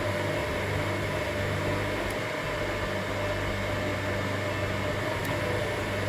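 Asynchronous (induction) washing machine motor running steadily on mains power with a capacitor connected for starting, giving an even hum and whir.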